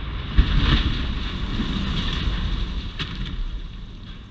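Rumbling and crashing of a steel through-truss bridge span collapsing right after explosive cutting charges have fired, with a sharp crack about half a second in and another about three seconds in. The rumble fades near the end.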